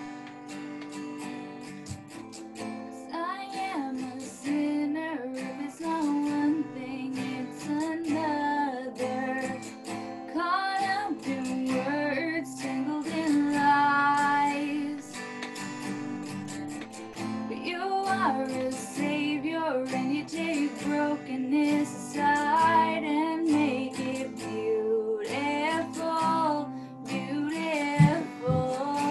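A woman singing a song while strumming an acoustic guitar; the guitar plays alone at first and her voice comes in about three seconds in.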